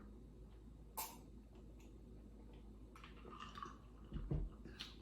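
Quiet eating sounds of a person working through a hot cheesy potato casserole: a utensil clicks sharply once about a second in, followed by soft chewing and mouth sounds, with a brief low bump a little after four seconds.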